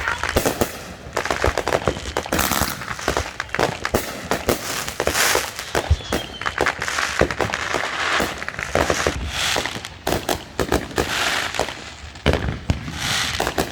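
Fireworks going off in a dense, irregular barrage of bangs and crackles, with a short rising whistle about six seconds in.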